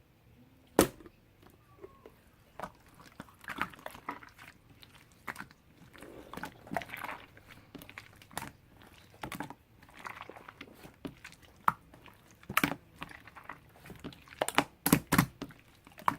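Marbled slime being kneaded and pressed by hand: irregular wet squishing with sharp popping clicks of trapped air, the loudest clicks about a second in and near the end.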